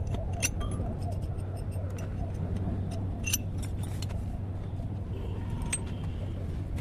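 Light metallic clinks and taps, scattered and irregular, over a steady low running hum like an engine or motor.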